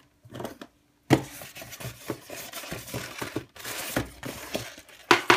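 Packaging being handled on a table, with paper manuals and the foam insert of a cardboard box moved about. Steady rustling and scraping with many light knocks, starting about a second in, and a sharper knock at that point and another near the end.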